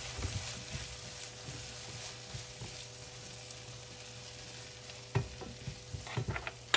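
Chopped vegetables (onion, bell peppers, peas, corn) sizzling gently in butter in a non-stick frying pan on low heat, being stirred and scraped with a silicone spatula. From about five seconds in there are several sharp knocks of the spatula against the pan, the loudest at the very end.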